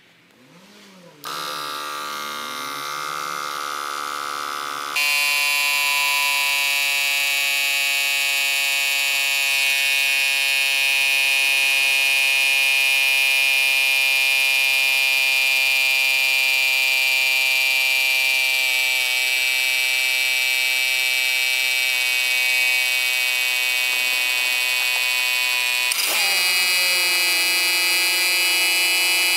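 Portable 12 V piston air compressor running, pumping up a car tyre: a steady buzz that starts about a second in and gets louder about five seconds in.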